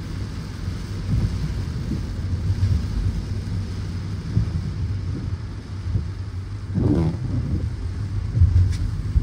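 A car driving on wet roads in heavy rain: a steady low rumble of engine and tyres with a faint hiss of water. A short pitched sound comes about seven seconds in, and a sharp click near the end.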